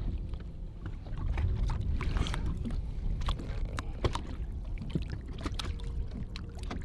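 Lake water splashing and sloshing as a largemouth bass is lowered by hand into the water beside a boat and let go, over a steady low rumble, with scattered small knocks.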